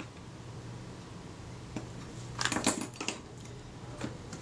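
A few light metallic clicks and clinks, bunched about two to three seconds in, as small steel hand tools are handled and set down on the workbench.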